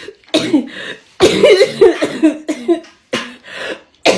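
A woman coughing in a hard, uncontrollable fit, three bouts in a row with the longest in the middle: the harsh coughing that follows a dab hit of cannabis concentrate.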